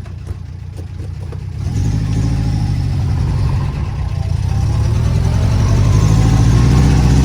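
Car engine running as the car pulls away, heard from inside, getting louder about two seconds in and building steadily as it gathers speed.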